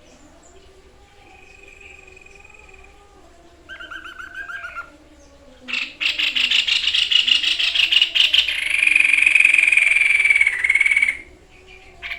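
White-breasted babbler (tepus dada putih, the 'sniper bird') singing. A short trill comes about four seconds in, then a loud, rapid rattling series from about six seconds runs into a sustained shrill buzzing note that stops about eleven seconds in.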